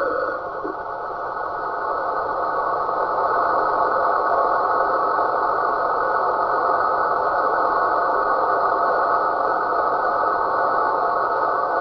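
Radio receiver output: a steady hiss confined to a narrow band, with faint steady tones running through it. It dips briefly in level near the start, then holds even. The uploader calls this signal the snoring sasquatch.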